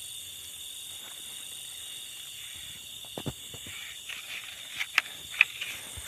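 Night chorus of crickets and other insects, a steady high-pitched trilling. A few brief knocks and rustles come about three seconds in and again near the end.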